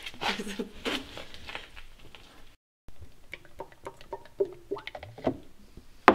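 Liquid poured from a metal tin into a plastic mixing cup, glugging and splashing in many short irregular blips from about halfway in.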